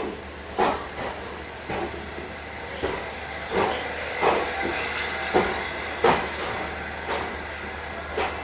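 Wheels of an old ICF passenger coach clicking over rail joints and points at uneven intervals, about one to two a second, as the train rolls slowly into the platform, over a steady hiss of running noise.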